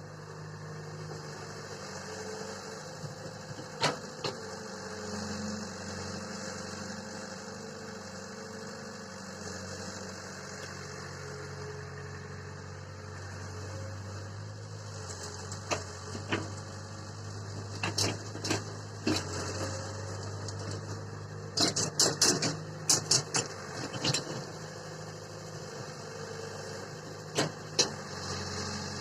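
Swaraj 855 tractor's three-cylinder diesel engine running steadily at low revs. Sharp knocks or clanks break in now and then, the loudest in a cluster a little past the middle and a pair near the end.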